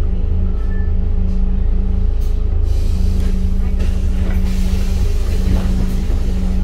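Scania K310UD bus's five-cylinder diesel engine running with a steady low drone, heard from on board. About four seconds in, a hiss of compressed air rises over it for roughly two seconds, typical of the bus's air brakes.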